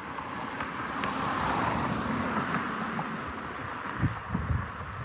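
Strong, gusty wind rushing, swelling over the first couple of seconds and then easing, with low thumps of wind hitting the microphone near the end.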